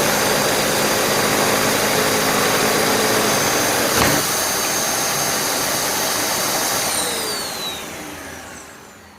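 Dyson Cinetic Big Ball upright vacuum running with its newly repaired cleaner head, working properly again. There is a single knock about four seconds in, and near the end it is switched off and its motor whine falls away as it spins down.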